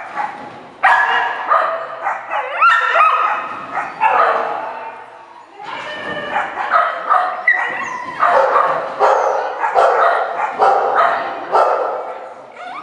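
A dog barking over and over, one sharp bark after another with short gaps and a brief lull about halfway through, mixed with a few higher yips.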